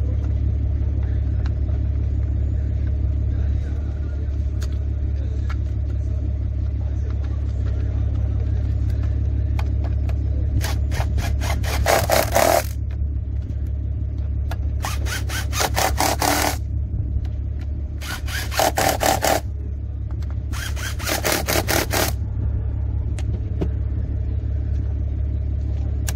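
Cordless power driver tightening the throttle-body bolts: four bursts of about one and a half to two seconds each, with rapid clicking, over a steady low hum.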